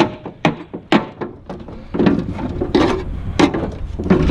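Irregular sharp knocks and clanks of scrap metal parts being handled and knocked against each other, with a denser clatter about two seconds in.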